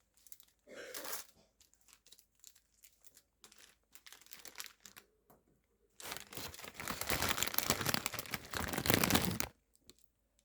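Crinkling of a plastic ramen packet, in short scattered crackles, then a few seconds of louder, continuous crackling and tearing starting about six seconds in.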